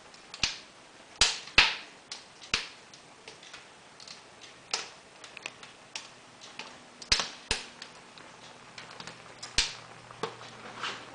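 A wood fire crackling in a kitchen cookstove's firebox: irregular sharp cracks and pops, some loud and many faint, with the loudest a second or so in and again past the middle.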